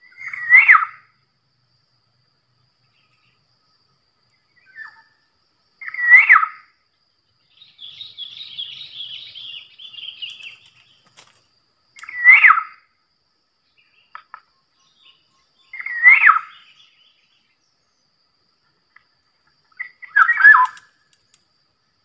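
Black-naped oriole calling: five short, loud, fluty calls about four seconds apart, each with a quick flick up and down in pitch. A softer, higher twittering from a smaller bird runs for a few seconds between the second and third calls.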